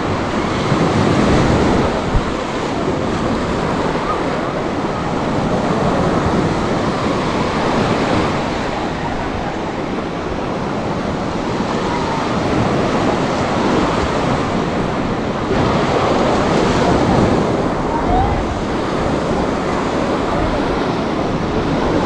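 Sea waves breaking and washing up on a sandy beach, swelling and ebbing every few seconds, with wind buffeting the microphone. There is a single sharp click about two seconds in.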